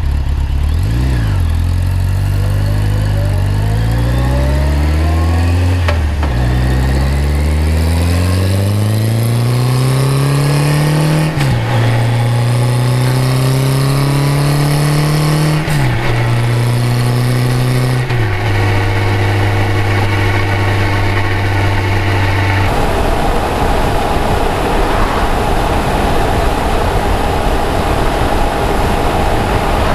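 A 1991 Kawasaki Voyager's inline-four engine pulling away and accelerating up through the gears. Its pitch climbs in each gear and drops sharply at each of about four upshifts. It then settles into a steady cruise, with wind and road noise covering the engine for the last third.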